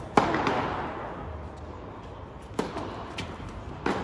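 Tennis racket striking the ball on a serve: one sharp crack that echoes around a large indoor hall. Further ball strikes follow near the end as the rally goes on.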